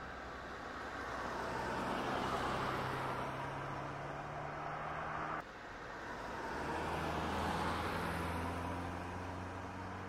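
Radio-controlled toy excavator's motors whirring as the arm lifts the bucket. The whir swells, breaks off suddenly about five seconds in, then rises again.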